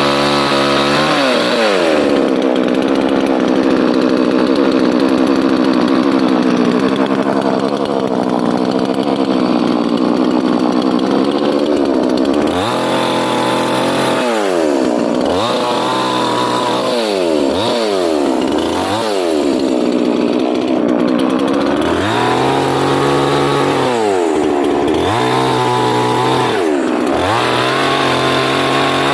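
Chainsaw cutting wood: the engine holds a high, steady note for about the first twelve seconds, then is revved up and down again and again.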